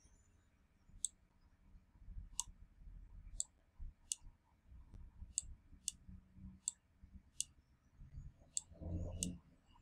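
Computer mouse button clicking about ten times at an uneven pace, faint and sharp: each click places an anchor point with the pen tool.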